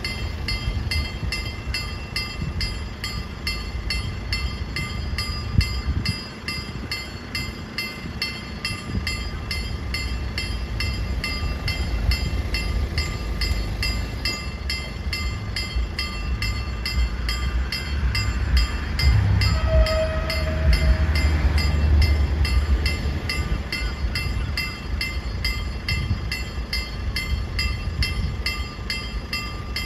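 Electronic level-crossing bell striking steadily, about three times a second, while a train rumbles through the crossing. The rumble is loudest about two-thirds through.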